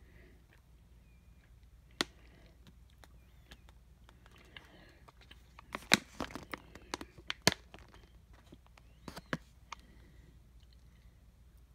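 Scattered crinkles and clicks of a flexible snack pouch being handled in the hand: one about two seconds in, a cluster from about six to seven and a half seconds, and a couple more near nine seconds.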